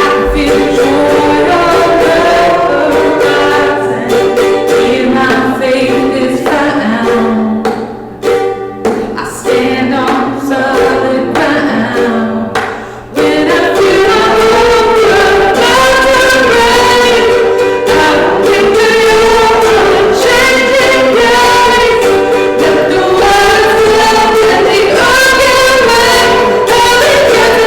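Congregational worship song: voices singing together over plucked-string accompaniment. A sparser passage with brief drops gives way to a fuller, steady sound about thirteen seconds in.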